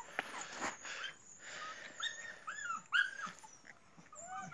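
Dogs whimpering and yipping: a run of short, high whines in quick succession in the middle, and a few more near the end.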